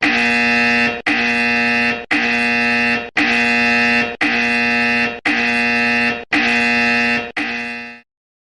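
Electronic alarm tone: a buzzing, pitched note repeated about once a second, eight times, then cutting off.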